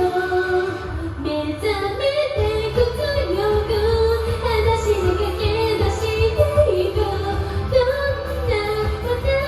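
A woman singing a Japanese pop song along to a karaoke backing track with a heavy bass line.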